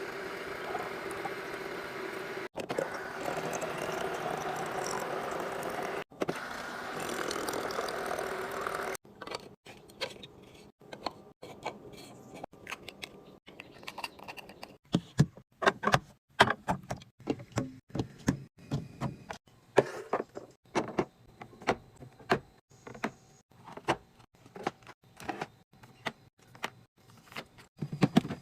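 A steady rushing noise for about nine seconds, broken twice by short cuts, then a long run of irregular clicks, taps and knocks of small household items being handled and set down.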